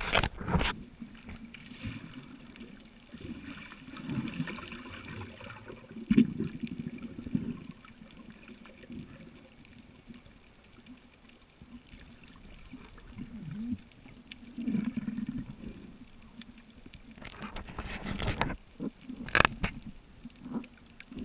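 Muffled underwater water noise heard through a camera housing, swelling and fading as the diver moves, with a few sharp clicks and knocks.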